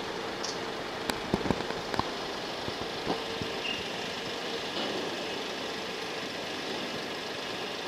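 Truck and crane engines idling steadily, with a few sharp knocks in the first three seconds.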